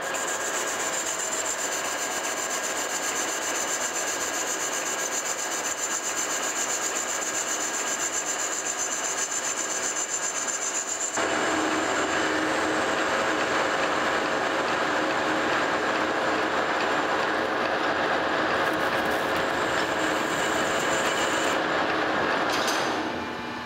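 Metal lathe running while a carbide insert tool takes a facing cut across a spinning cast iron (Durabar) pulley blank: a steady hiss of cutting with a high whine. About 11 seconds in it becomes louder and fuller, and it drops away just before the end.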